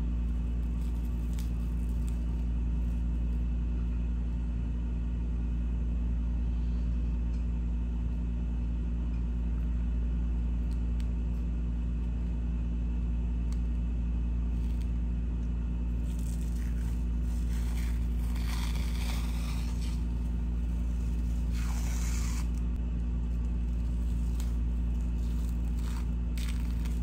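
Steady low hum with a few brief soft peeling and scraping sounds a little past halfway, again a few seconds later and near the end: a dried peel-off cucumber face mask being pulled off the skin.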